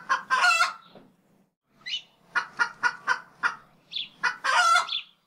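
Hen cackling: a run of short clucks ending in a long, drawn-out squawk, heard twice.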